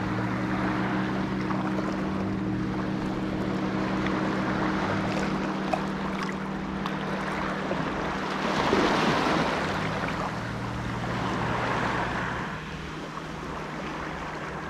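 Shallow seawater sloshing and washing around a wader's legs over rocks, with wind on the microphone and a steady low hum underneath. The water noise swells louder for a couple of seconds past the middle.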